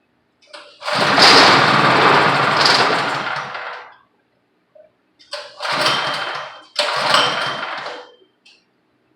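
163 cc pressure-washer engine being pull-started: a long burst of about three seconds, then two shorter bursts, each dying out without the engine running on. The engine is short of fuel.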